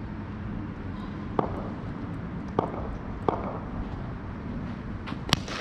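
Four sharp knocks from indoor cricket play over a steady low rumble, the loudest near the end.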